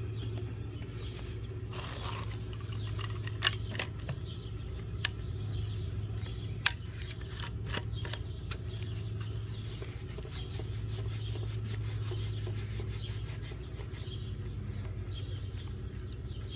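Plastic rubbing and scraping as threaded stepped hose fittings and their union nuts are screwed onto the ports of a pond UV filter. A few sharp plastic clicks come in the first half, over a steady low hum.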